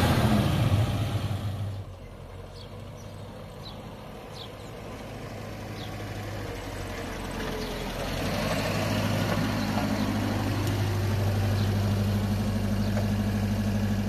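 Car engine running: loud for the first two seconds, then fading, then idling steadily from about eight seconds in as a low, even hum.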